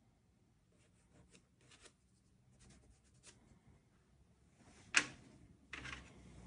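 Soft pastel stick scratching on colored paper in short, faint strokes, followed by a sharp click about five seconds in and a brief rustle just before the end.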